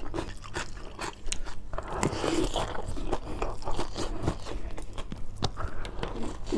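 Close-up eating sounds: a person chewing and biting into a packed rice meal with samba lado tanak, with many small wet mouth clicks and crunches.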